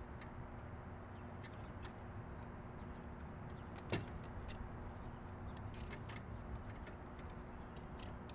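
Light metallic clicks and taps of a TV antenna's metal reflector rods being slid into their bracket, with one sharper click about four seconds in, over a faint steady background hum.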